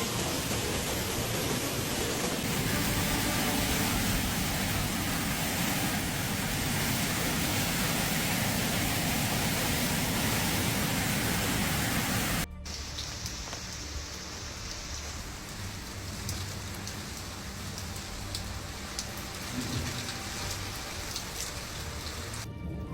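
Heavy rain pouring down as a dense, steady hiss. About halfway through it drops suddenly to lighter rain with scattered sharp ticks of drops striking a surface.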